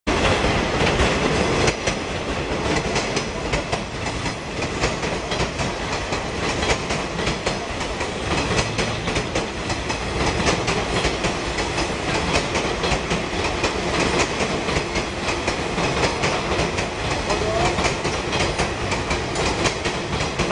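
A Tobu 8000 series electric commuter train approaching and running past close by, its wheels clicking steadily over the rail joints.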